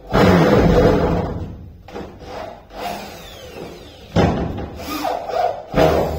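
Handheld electric drill run in bursts into a plywood door panel: a long run in the first two seconds, a few short ones, then two more loud runs near the end.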